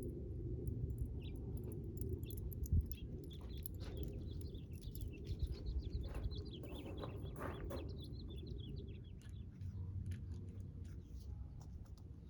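Bird chirping, a quick run of short warbling high notes in the middle, over a steady low background rumble, with scattered small clicks and taps and one sharp knock about three seconds in.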